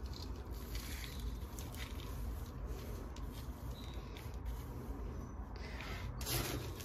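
Potting mix with perlite being tipped from a small pot and pressed down by hand around a plant in a pot: soft crumbly rustling and scraping of soil, with a slightly louder scrape near the end, over a low steady hum.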